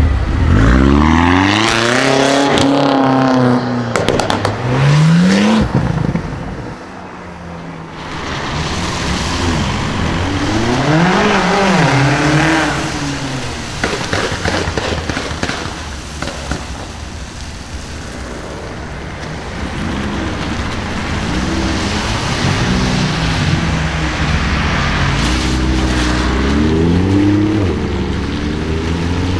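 BMW X6M's tuned twin-turbo V8 through an Akrapovic exhaust accelerating hard several times, the engine note climbing in pitch in repeated bursts with a quieter lull in between. Sharp exhaust crackles are mixed in with the revs.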